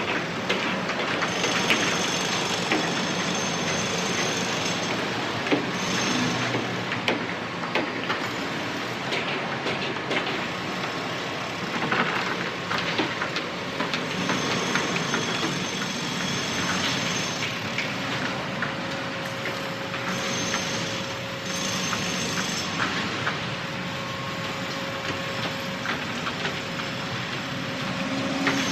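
Construction site ambience: machinery running steadily, with frequent short knocks and metal clanks over it and a thin high whine that comes and goes.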